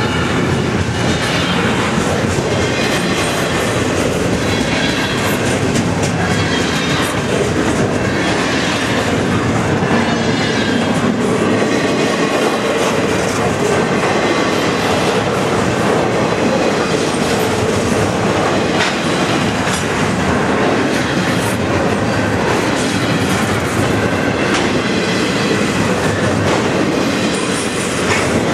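Double-stack intermodal well cars rolling steadily past close by: a loud, continuous rumble of steel wheels on rail with irregular clicking over the rail joints.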